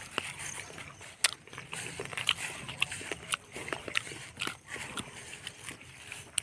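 Footsteps on a wet, grassy dirt footpath, heard as irregular scuffs, clicks and knocks.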